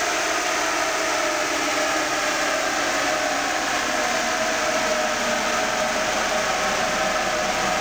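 Mitsubishi Pajero 3.2 DI-D four-cylinder turbodiesel running on a chassis dynamometer, under a steady, blower-like rush of noise. Its pitch drifts slightly lower over the first few seconds.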